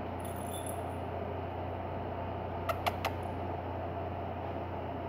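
St. Bernard mix puppy licking and mouthing a cat's head: three quick wet clicks close together a little past halfway, over a steady background hum.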